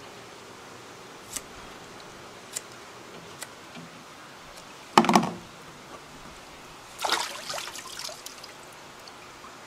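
Scissors snipping membrane off a raw mullet roe sac, a few light clicks, with water trickling in a basin. A louder knock about halfway through and a rougher burst of handling and water noise near the end.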